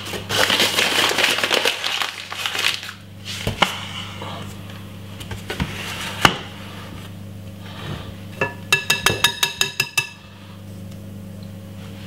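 Kitchen utensil handling: rustling for the first few seconds and a couple of sharp knocks, then a quick run of about ten ringing taps, a metal whisk knocked against the rim of a glass mixing bowl to shake off cake batter. A steady low hum runs underneath.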